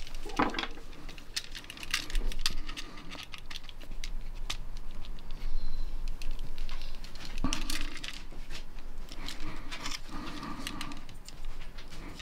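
Scattered plastic clicks, taps and scrapes as a GFCI receptacle is turned over in the hand and pried at with a flat-blade screwdriver, metal tip against the plastic housing and mounting strap.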